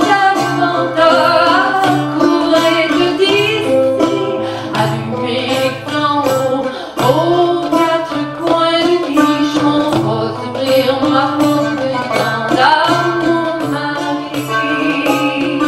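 A woman singing a French folk ballad while beating a rhythm with her hands on a metal goblet drum (dumbek), over a steady low drone.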